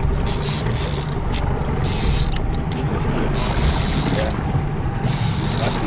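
Steady low rumble of a small motorboat at sea, with wind rushing on the microphone and a few short gusts of hiss.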